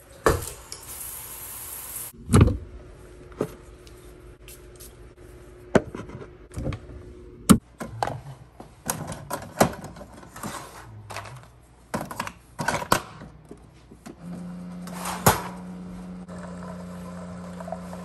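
A brief rush of hiss at the start, then a run of knocks and clicks of things being handled, then a single-serve coffee maker brewing with a steady low hum that starts about three-quarters of the way in.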